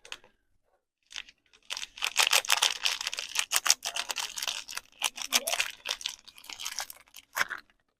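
Soap packaging being unwrapped: a dense run of crinkling and tearing of the wrapper that starts about two seconds in, then one short rustle near the end.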